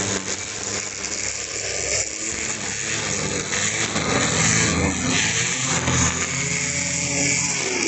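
Tramontina AP1000T corded electric string trimmer running steadily, its nylon line whirring as it cuts grass.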